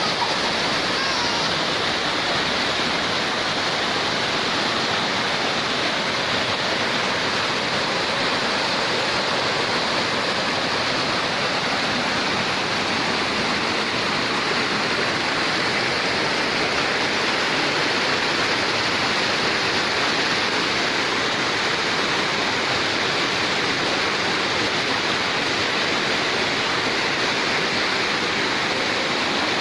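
Waterfall pouring into a pool: a steady, loud rush of falling water.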